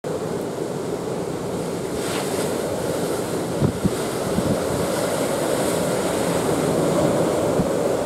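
Typhoon-driven storm surf breaking and churning against a seawall, with strong wind buffeting the microphone. Two sharp thumps stand out about halfway through.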